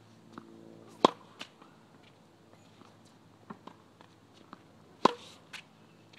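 Tennis racket striking the ball on two forehands, two sharp pops about four seconds apart.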